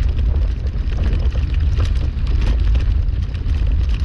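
Wheeled dryland rig rolling fast along a trail behind a dog team: a steady low rumble with scattered light ticks and rattles.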